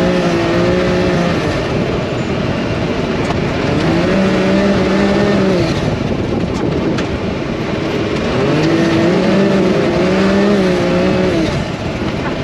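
Can-Am Maverick X3 side-by-side on the move, its turbocharged three-cylinder engine running under a dense, steady rushing noise. A pitched engine note comes and goes three times, wavering up and down as the revs change.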